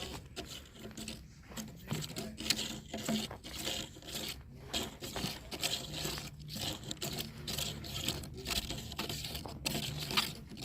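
Irregular scraping and rubbing noises in short uneven bursts, over a faint low steady hum.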